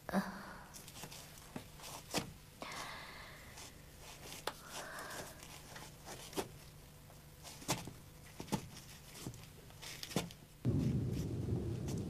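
Scattered light knocks, footfalls and rustles of a person getting up from a table and moving about a small stone room. About ten and a half seconds in, these give way to a steady low rumble of open-air background noise.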